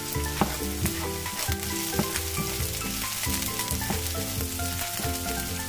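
Chopped ginger, onion, garlic and chili sautéing in oil in a nonstick frying pan, with a steady sizzle and the wooden spoon scraping and tapping the pan as it stirs.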